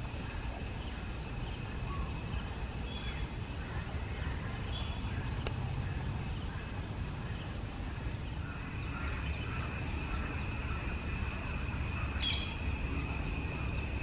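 Outdoor ambience: a low steady rumble under a steady high insect drone, with a few faint short bird chirps and one sharper, brief bird call about twelve seconds in.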